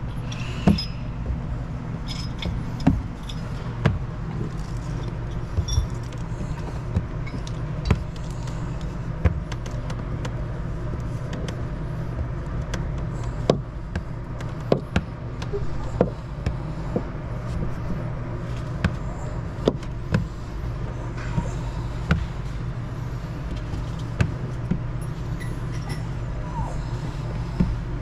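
Steady low mechanical hum, with scattered clicks and light knocks from a squeegee and hands working window tint film onto curved boat glass.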